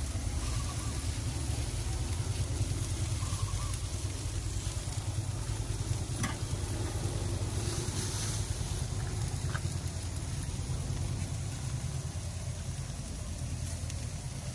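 Helicopter flying nearby: a steady low rotor rumble.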